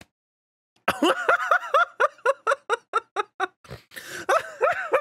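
A man laughing hard after about a second of silence: a fast run of short pitched bursts, about six a second, growing denser and more breathless near the end.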